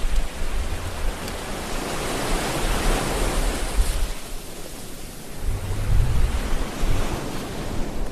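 Sea waves surging and washing, one wave swelling to a peak about three seconds in and then receding, with low rumbling underneath.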